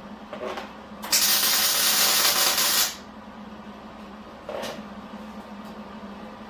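A short tack weld: the welding arc hisses steadily for just under two seconds, starting about a second in and cutting off sharply.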